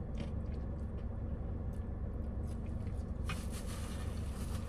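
Quiet eating sounds: a plastic spoon scooping mac and cheese and soft chewing, with small clicks over a steady low hum inside the car. A brief rustling hiss comes in after about three seconds.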